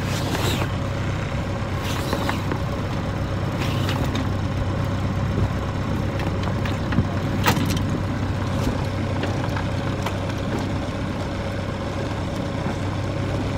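Sailing ketch's auxiliary engine running steadily at an even speed, with a few light knocks and clicks over it.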